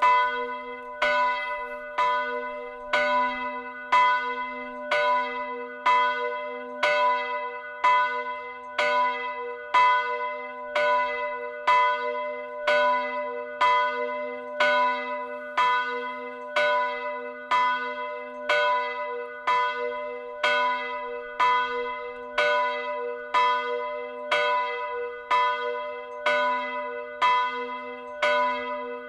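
A single bronze church bell of about 350 kg, cast by Janusz Felczyński's foundry in Przemyśl and tuned to B4 (h'), swinging full and struck by its clapper about once a second. Each stroke rings on under the next, so the tone never dies away; the bell is swung by an automatic drive.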